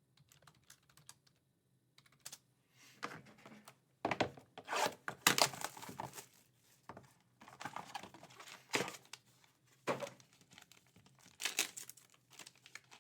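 Trading cards in plastic sleeves and holders being handled: scattered crinkling, scraping and light clicks in short clusters, busiest about four to six seconds in and again toward the end.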